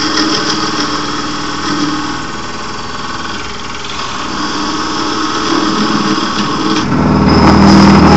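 Wood lathe motor running steadily while a small piece of wood is turned. About seven seconds in the sound grows louder and heavier.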